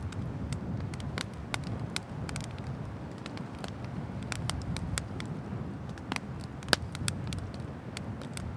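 Wood bonfire burning: irregular sharp crackles and pops from the burning firewood over a steady low rumble, with one loud pop about two-thirds of the way through.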